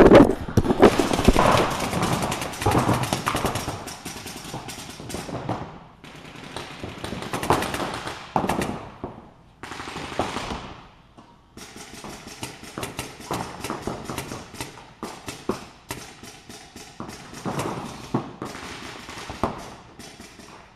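Several paintball markers firing reballs in rapid strings of shots, dense in the first few seconds, then thinner with short lulls.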